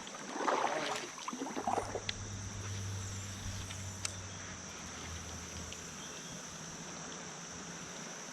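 Kayak moving on a calm creek, with soft paddle splashes and drips in the first couple of seconds. A steady high-pitched insect drone runs underneath, and a low hum rises and fades in the middle.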